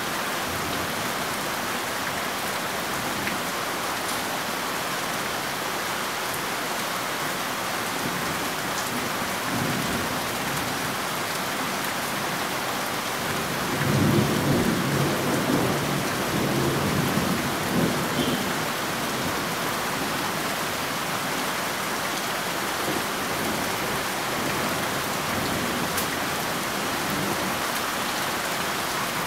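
Steady rain with a low rumble of thunder rolling for a few seconds about halfway through.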